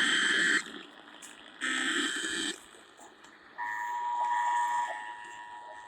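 Emergency Alert System test: two short, screechy bursts of digital SAME header data, each about a second long, then about three and a half seconds in the steady two-tone EAS attention signal starts, dropping in loudness about a second later.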